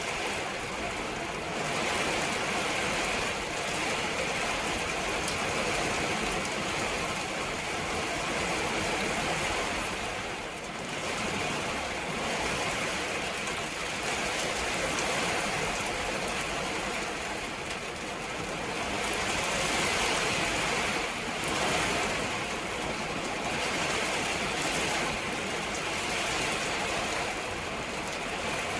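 Steady rain shower falling, a continuous hiss that swells and eases in strength over several seconds.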